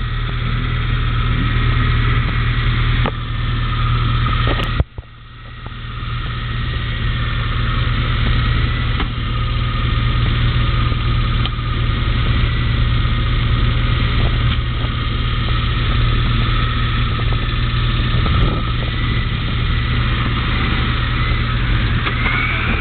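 Suzuki 4x4 off-roader's engine running steadily as it crawls through deep, rutted sandy ground. About five seconds in there is a sharp click, and the sound briefly drops away before coming back.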